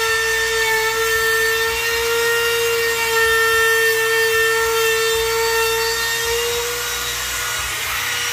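Milwaukee compact router running at speed, its chamfer bit cutting along the edge of a pine board: a steady high motor whine over the rasp of the cut. Near the end it is lifted off the wood and the whine fades.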